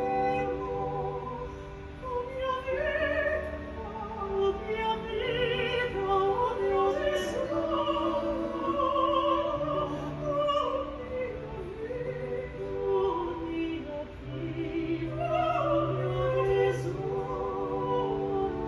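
Operatic singing with a strong vibrato over orchestral accompaniment, played back through a two-channel stereo system.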